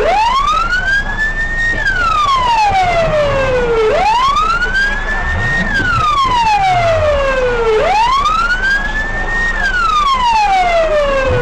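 A siren on a slow wail: the tone climbs, holds briefly at the top, then falls back, each cycle lasting about four seconds, three times over.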